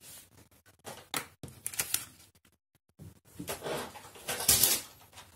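A strip of patterned craft paper being handled on a cutting mat: short crisp rustles and light taps, a brief dead gap about halfway, then a longer, louder rustle as the strip is picked up near the end.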